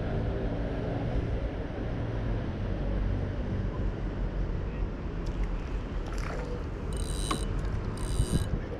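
Steady low rumble of a motor running. From about seven seconds in, short bursts of clicking from a fishing reel being wound.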